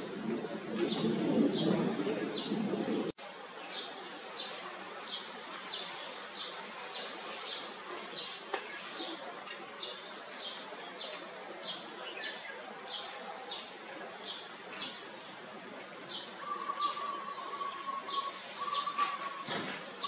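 Red-whiskered bulbul calling: short, high chirps repeated evenly at about two a second.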